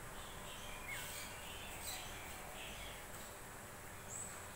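Faint steady outdoor background noise with scattered short bird chirps, including a brief falling whistle about a second in.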